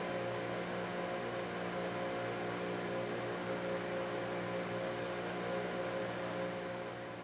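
Electric motor of a woodworking machine running steadily at a constant pitch, an even hum with a hiss over it.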